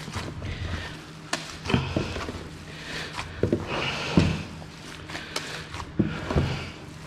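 Bare hands kneading and squeezing wet minced pork and game sausage meat in a plastic crate: irregular squelches and slaps, about six louder ones. The meat is being worked with added water so the protein swells and binds. A low steady hum sounds throughout.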